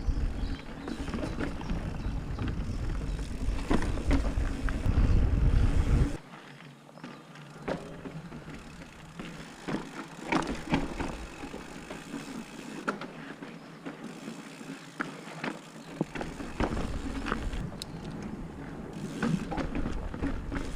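Mountain bike ridden fast down a rough trail: wind buffets the microphone with a heavy rumble for the first six seconds, then drops away suddenly, leaving tyre noise on the dirt and many sharp rattles and knocks from the bike over rough ground.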